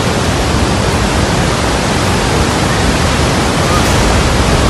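Loud, steady rush of the flooded Balganga river's muddy torrent in spate.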